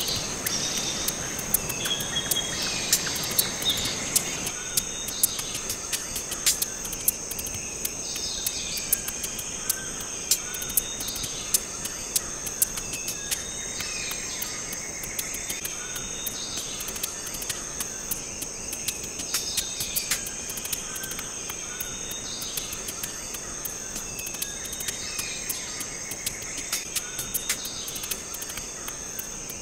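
Steady high-pitched insect trill, like crickets, with many irregular sharp clicks and short higher tones that come and go every few seconds.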